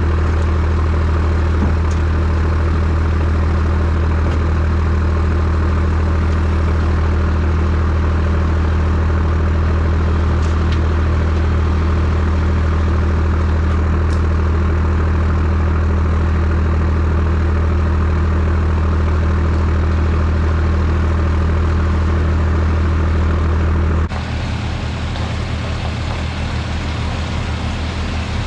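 Kubota M6060 tractor's diesel engine running steadily with a strong low hum. About 24 s in it drops slightly in level and its note changes, then runs on evenly.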